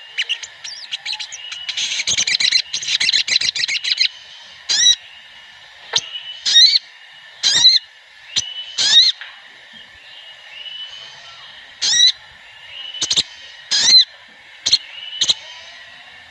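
Sogon (crimson sunbird) calls: sharp, high chirps, with a fast rattling trill about two to four seconds in, then single sharp chirps about once a second.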